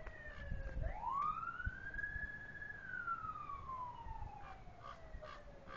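Emergency-vehicle siren in wail mode. It sweeps up about a second in, holds a high note for about a second, then slides slowly back down and starts rising again at the end, over a low rumbling noise.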